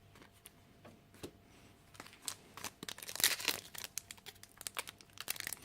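Foil wrapper of a Magic: The Gathering booster pack being torn open and crinkled by hand. A few light clicks at first, then crackly crinkling from about two seconds in.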